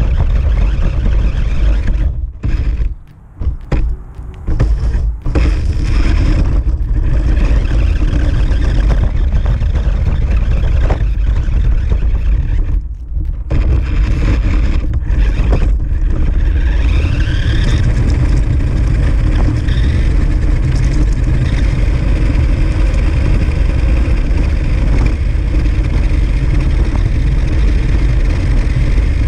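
Toy RC pickup truck's electric drive motor and plastic gearing whining, with its tyres rumbling over a concrete path, heard from a camera mounted on the truck itself. The sound cuts out briefly several times in the first few seconds and once more about a third of the way in, and a short rising whine comes in a little past halfway as it speeds up.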